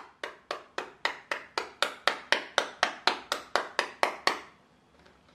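A cigarette pack being packed, tapped against the palm in quick, even strikes about four times a second, stopping about four and a half seconds in.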